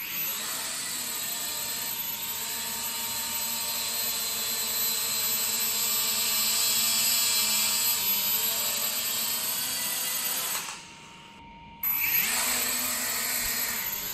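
E88 Pro toy quadcopter's four small motors and propellers running with a steady high-pitched buzz as it flies. The sound dips for about a second near the end, then comes back with its pitch wavering.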